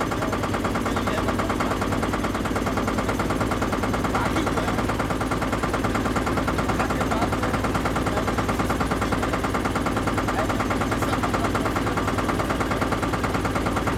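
Boat engine running steadily with a fast, even chugging pulse.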